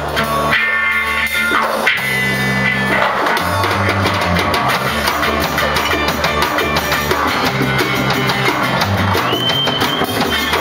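Live band playing an acoustic-style set: guitars over a drum kit and a hand drum, with a steady beat and sustained low notes that change every second or two.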